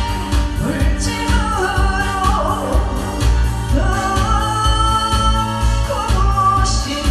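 A woman singing a Korean trot song live into a microphone, holding long notes with vibrato, over musical accompaniment with a steady bass beat.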